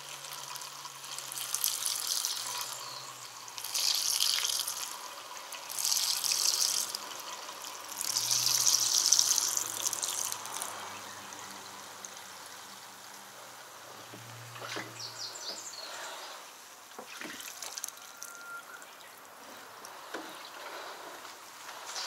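Fuel pouring from an upturned plastic jerry can through its spout into a tractor's fuel tank. It gushes in four strong surges over the first ten seconds, then runs on as a quieter steady pour, with a few light knocks in the second half.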